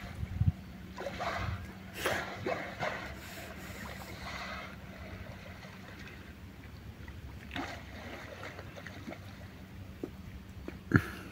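Water splashing and sloshing in short, irregular bursts over a low steady rumble, with a sharp knock near the end.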